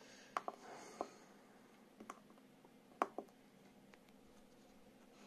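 Faint clicks and taps from a handheld TPMS tool being handled and its keypad buttons pressed, a few of them in quick pairs, the sharpest about three seconds in.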